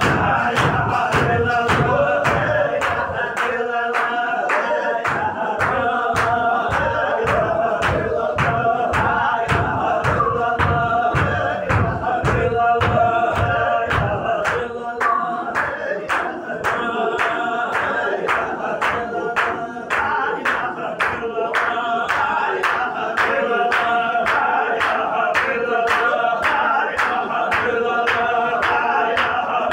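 A group of men chanting a Sufi zikr in unison, with a sharp, steady beat about twice a second.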